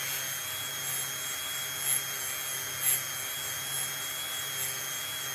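Dremel rotary tool with a wire brush running at a steady high-pitched whine, cleaning stripped paint off a diecast toy car body, with brief louder scrapes about two and three seconds in as the brush bites the metal.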